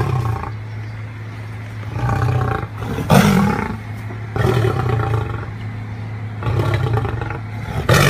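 Tiger roaring in a series of calls, one every second or two, the loudest about three seconds in.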